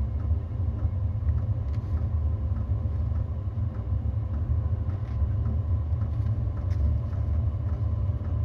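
Diesel air heater running during start-up: a steady low rumble, with faint, evenly spaced ticks about twice a second from its electromagnetic fuel dosing pump.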